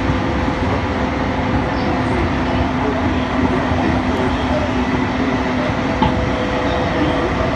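Running noise inside an E231-series electric commuter train at steady speed: the continuous rumble of wheels on rail, with a steady electric hum from the traction equipment. The lower tone of the hum drops away about six seconds in.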